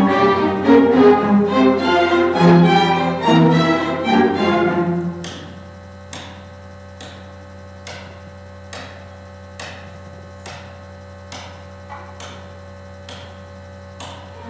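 String orchestra of cellos and violins playing together, breaking off about five seconds in. After that, a sharp tick keeps a slow, even beat about once a second.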